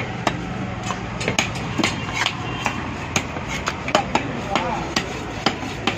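Large knife chopping fish on a wooden log block: sharp knocks, irregular, about two or three a second, over background voices.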